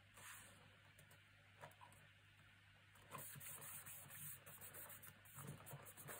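Near silence, with faint rustling and a few light taps from hands handling and smoothing a paper panel onto a card album cover; the rustling picks up about three seconds in.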